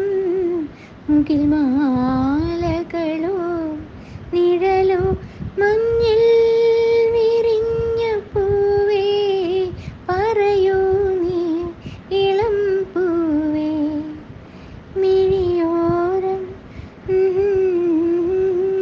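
A woman singing a Malayalam song melody, with held notes that bend and sway, in phrases of one to three seconds separated by short breaks.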